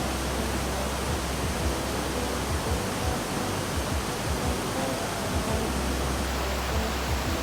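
Brasstown Falls' cascading waterfall pouring steadily, an even rush of falling water.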